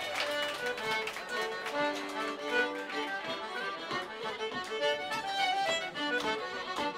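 Traditional Irish music led by a fiddle playing a quick tune of short running notes.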